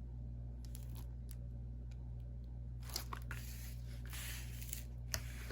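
Faint rustling and crinkling of packaging being handled, strongest from about three to five seconds in, with a few light clicks, over a steady low hum.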